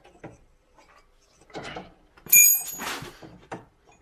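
A radiator and its steel support frame being manoeuvred into place by hand: scattered scrapes and knocks, then a sharp metallic clank that rings briefly a little over two seconds in, the loudest sound, followed by a short rattle.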